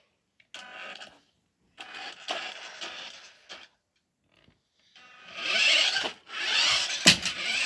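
Toy RC car's small electric motor whirring in short bursts of one to two seconds, louder in the last two bursts, with a sharp knock about seven seconds in.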